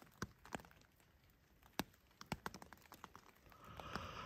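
Faint, scattered raindrops tapping on a nylon hammock tarp: single sharp ticks at irregular intervals, a few louder than the rest, with a faint fabric rustle near the end.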